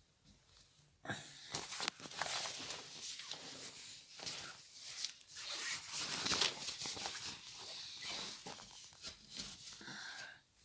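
Rustling and crinkling of something being handled, with many small clicks, starting about a second in.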